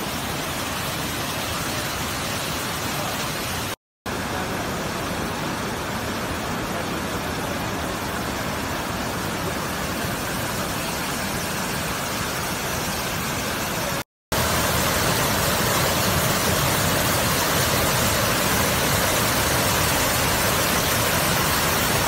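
Waterfall: a steady, even rush of falling water. It cuts out abruptly twice, about four and fourteen seconds in, and is louder after the second cut.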